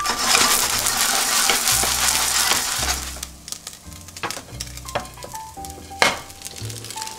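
Seafood chijimi batter sizzling loudly in oil in a frying pan for about three seconds, then frying more quietly. A few sharp clinks follow as a ceramic plate is set over the pan, the loudest about six seconds in. Background music with a bass line plays throughout.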